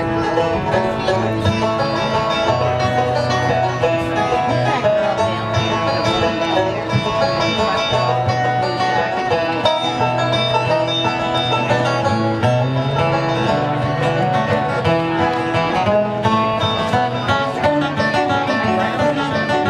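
Instrumental break in a country-folk song: plucked acoustic string instruments playing the tune over a steady low bass line, with no singing.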